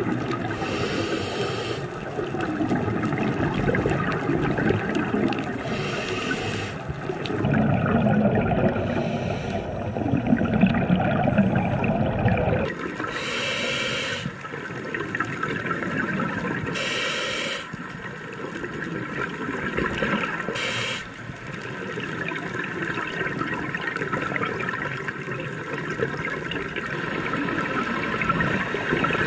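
Underwater bubble noise from a scuba diver's breathing: exhaled bubbles rushing and gurgling, with short hisses every few seconds. The low rushing is heavy for the first twelve seconds or so, then drops away.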